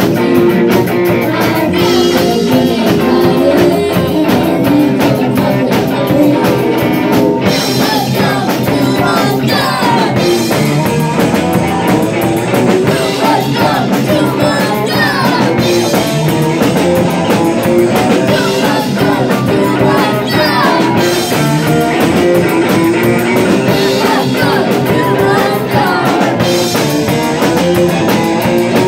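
Live punk rock band playing a song: distorted electric guitar, bass and a drum kit, with sung vocals over it.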